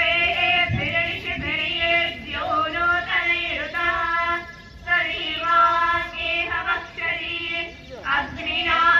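A group of girls and young women singing a devotional chant together in unison, in a string of held notes.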